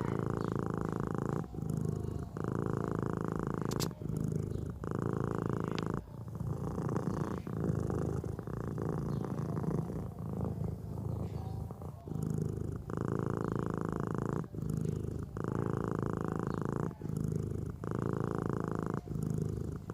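Sleeping cat snoring: a steady rumble in time with its breathing, sounding on both the in-breath and the out-breath, with short breaks between breaths.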